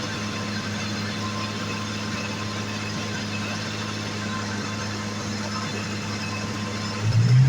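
1986 Jaguar XJ6 straight-six engine idling steadily, with a brief louder swell near the end. The exhaust noise is put down by the owner to the catalytic converter having been stolen.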